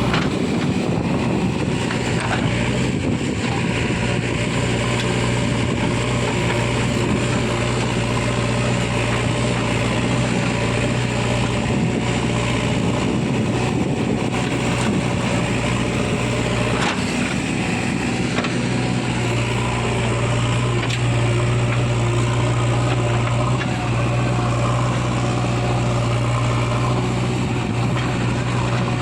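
Diesel engines of a backhoe loader and a tractor running steadily at a constant speed, with a low, even hum and a brief knock about halfway through.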